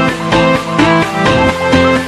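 Background music: an upbeat electronic track with plucked guitar notes over a steady beat.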